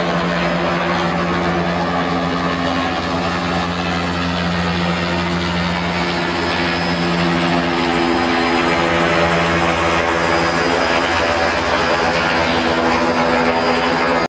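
Police helicopter hovering overhead, its rotor and engine making a steady drone that grows slightly louder about halfway through.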